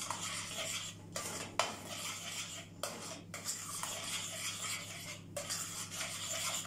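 A utensil scraping and clinking round a stainless steel pot as a thickening milk-and-starch cream is stirred without stopping, to keep it from forming lumps, with a few short pauses in the scraping.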